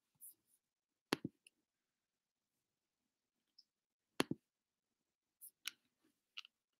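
Scattered soft clicks and taps, with two louder double clicks about a second in and about four seconds in.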